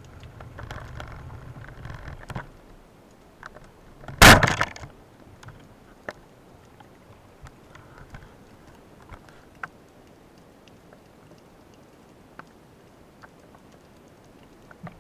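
A band-powered speargun fires underwater about four seconds in: one sharp, loud crack with a short ringing tail, the shot that spears a sea bass. Before it there is a low rumble for the first couple of seconds, and faint scattered clicks come afterwards.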